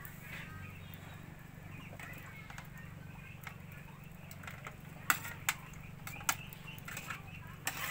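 A metal cooking pot on a wood fire, knocking and clicking a few times, mostly in the second half, as sliced green papaya is put into it. A steady low hum runs underneath.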